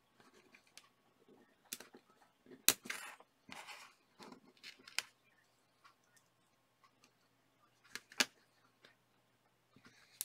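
Small metal clicks and scrapes as the welded metal tabs are worked off a CR2032 lithium coin cell. There are a few sharp clicks, the loudest about three seconds in and again about eight seconds in, with short scraping between.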